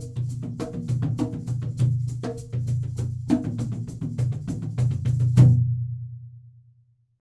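Ending of an instrumental music track: fast dry percussion hits over a steady low bass note, closing on a last accented hit about five seconds in that fades out to silence.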